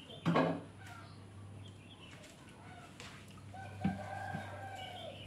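Chickens calling: a loud squawk just after the start, then a long crow of about a second and a half, about four seconds in, that holds its pitch and drops at the end.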